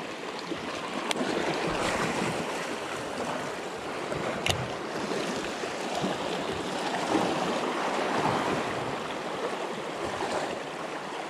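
Small sea waves washing and splashing around shoreline rocks, a steady surf noise, with two short sharp clicks about a second in and again about four and a half seconds in.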